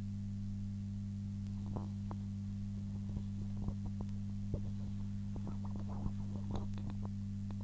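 Steady low electrical hum from the recording setup. From about a second and a half in, scattered small clicks and knocks of handling noise sound over it.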